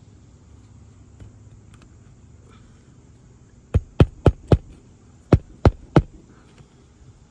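Hammer driving standard roofing nails into a replacement asphalt shingle: four quick blows, a short pause, then three more.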